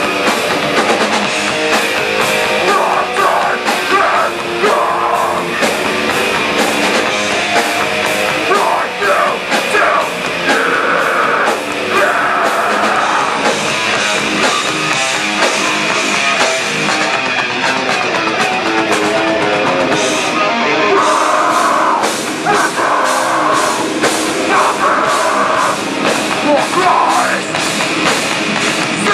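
Live heavy rock band playing loudly: distorted electric guitars, a fast steady drum beat and a singer.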